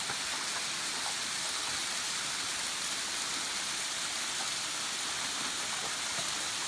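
Small waterfall splashing steadily onto rocks and a shallow pool: an even, unbroken hiss of falling water.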